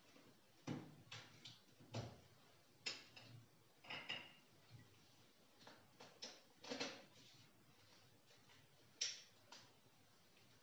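A series of short, irregular pops and knocks, about a dozen, over a faint hiss, the loudest one near the end.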